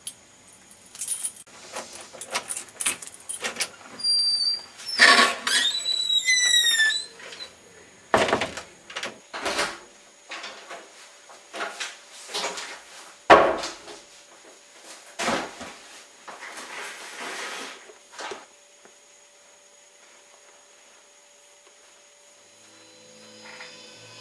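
A door being handled and opened, its hinge squealing in a few high glides, amid a string of knocks and shuffling movement. The noises stop about three-quarters of the way through, leaving a low hum.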